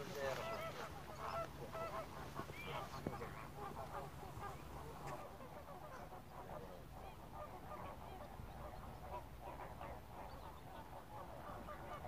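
Faint, distant flock of greater flamingos honking and gabbling, many overlapping goose-like calls.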